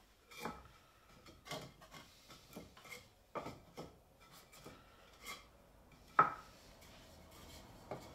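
Loose wooden slats knocking and clacking as they are set down and shifted by hand on a wooden bench frame, being laid out to check their spacing. The knocks come irregularly, with the loudest about six seconds in.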